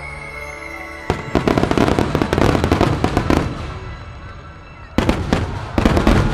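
Fireworks finale: a dense volley of many shells bursting and crackling starts suddenly about a second in and fades, then a second loud volley breaks out about five seconds in. Music for the show plays underneath.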